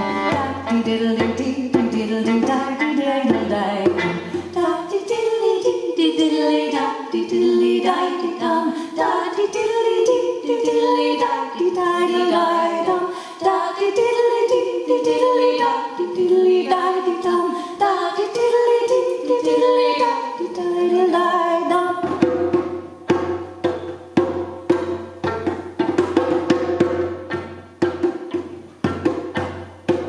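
A woman singing a wavering folk melody with fiddle accompaniment. About two-thirds of the way through, a djembe comes in with a steady beat of hand strokes under the fiddle.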